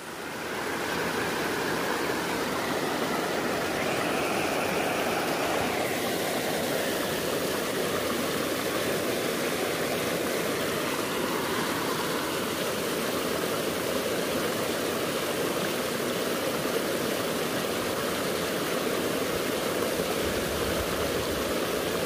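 Rushing water of a waterfall: a steady, even rush that sets in suddenly at the start and holds unchanged.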